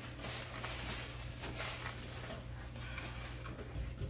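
Quiet room tone with a steady low hum, and faint soft noises of people eating at a table: biting and chewing corn on the cob.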